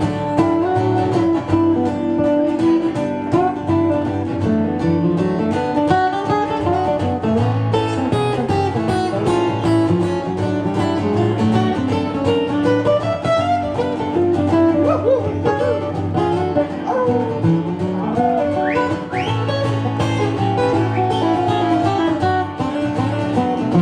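Instrumental break in a country song: acoustic guitar picking melody over strummed accompaniment, with no singing.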